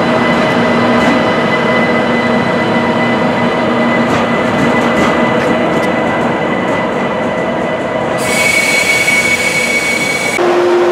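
ICE 1 (class 401) power car moving slowly, its GTO-thyristor traction converter and asynchronous motors giving several steady whining tones over rolling wheel-and-rail noise, with a few sharp ticks around four to five seconds in. The sound switches abruptly about eight seconds in to a steady higher whine with more hiss, and again near the end to a lower steady tone.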